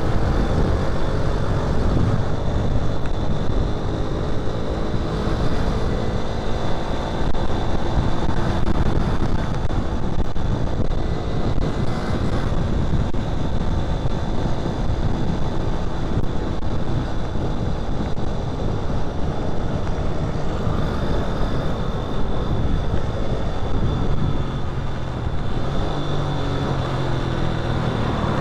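Motorcycle being ridden on a road: the engine runs over steady road and wind noise, its note falling in the first couple of seconds.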